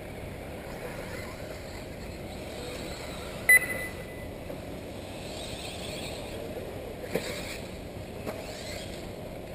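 1/8-scale electric RC buggies racing on an off-road track: a steady outdoor hiss with faint high whines from the cars' electric motors, rising and falling as they accelerate and brake. A short, sharp high beep about three and a half seconds in is the loudest sound, and two smaller clicks follow later.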